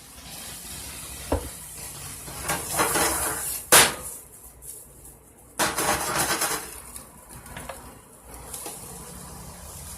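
Bell peppers, onions and garlic sizzling in a hot frying pan with chopped chicken and steak, while a utensil stirs and knocks against the pan. A sharp clank a little under four seconds in is the loudest sound.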